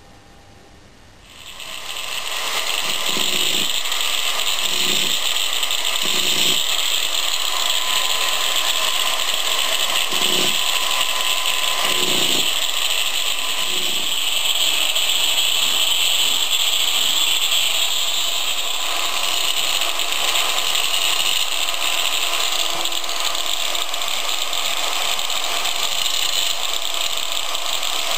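A power tool switches on about a second in and runs steadily with a hissing, grinding noise. A few brief lower bumps come in its first dozen seconds, as if it were pressed into the work.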